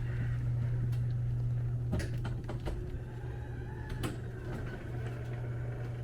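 Garage door opener running with a steady motor hum as the door moves, and a couple of sharp clicks about two and four seconds in.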